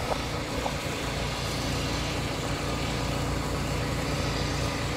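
Kubota DC70 combine harvester's diesel engine running steadily: a low, even drone with no change in speed.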